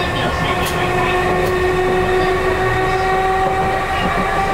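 Chikuho Electric Railroad 3000 series train heard from the driver's cab: a steady motor whine that slowly rises in pitch as the train gathers speed over a running rumble, with a couple of wheel clicks over rail joints in the first second or so.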